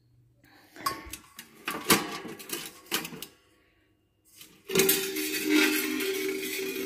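Sheet-metal parts of a small stainless-steel pyrolytic pellet stove clinking and knocking as it is opened. About five seconds in comes a longer grating metal-on-metal scrape with a ringing squeal.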